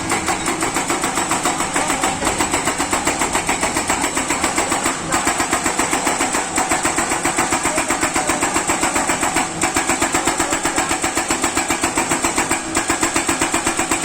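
Kato excavator working, its diesel engine running with a steady, rapid pulsing of about five beats a second.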